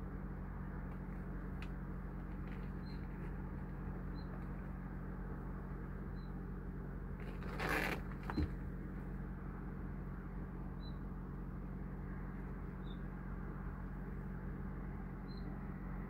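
Room tone: a steady low hum under background noise. About halfway through there is a brief rustle with a click just after, and faint short high peeps come now and then.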